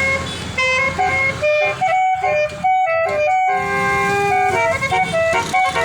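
Bus 'telolet' basuri multi-tone horn playing a tune: a run of loud, stepped horn notes, with one longer held note past the middle.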